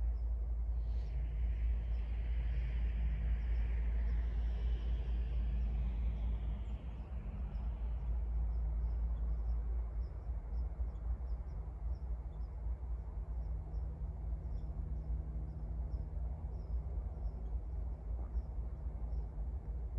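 Steady low outdoor rumble of distant traffic. A passing vehicle's noise fades away over the first several seconds, and a faint low hum comes in past the middle. Faint, evenly spaced high ticks repeat throughout.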